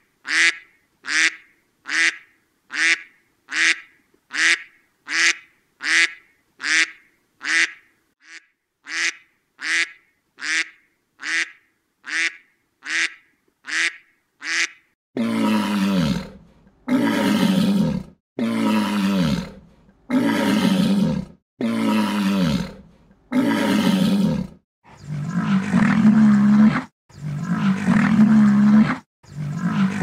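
Animal calls: a fast run of short, alike calls, under two a second, for about the first half; then longer, deeper calls of about a second each, repeated, with a still deeper call taking over for the last few seconds.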